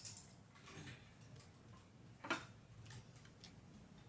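Sparse sharp clicks of hand tools or parts being handled during car repair work: one at the start, another about two seconds in, and a few faint ticks between.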